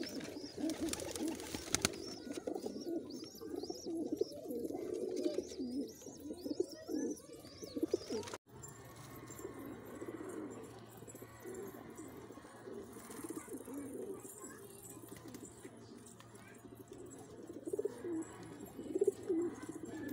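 Domestic pigeons cooing, several at once, in a continuous low warbling. Higher, thin chirps come through during the first several seconds.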